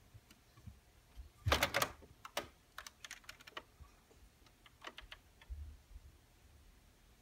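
A cat's claws and paws clicking and scrabbling on a plastic printer top and loose paper as it climbs onto it: a quick burst of clicks about a second and a half in, then scattered lighter clicks and a soft thump.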